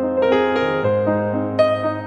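Background keyboard music: a gentle piano melody of single notes over held bass notes.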